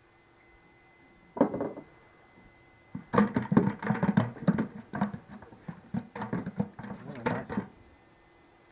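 Fish thrashing and splashing in a boat's livewell as a hand reaches in to grab one. There is a short burst about a second and a half in, then a rapid, irregular run of splashes and knocks lasting about four seconds.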